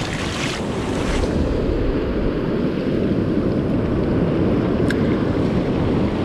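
Shallow surf washing over the sand and wind buffeting the microphone, a steady rush of noise. Splashing of the water in the first second or so, and one sharp click near five seconds in.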